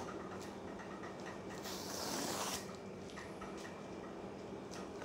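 Plastic courier mailer rustling as it is pulled off a cardboard box, with small handling clicks and one louder ripping swish about two seconds in.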